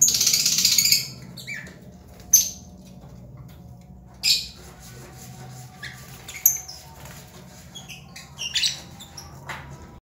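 Lovebirds calling: a dense burst of shrill chattering in the first second, then single sharp squawks and short chirps every second or two.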